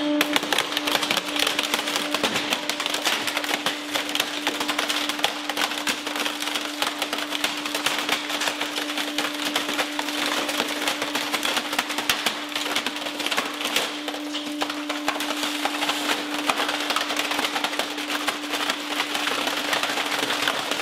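A multifunction printer's plastic housing and internal parts crackling and snapping without pause as a hydraulic press slowly crushes it. The steady hum of the press's hydraulic pump runs underneath.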